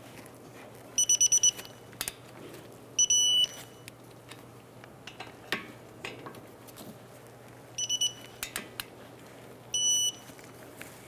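Digital torque wrench beeping as each of two caliper bracket bolts is tightened to the set torque of 77 ft-lb: a run of quick short beeps, then one longer beep, heard twice.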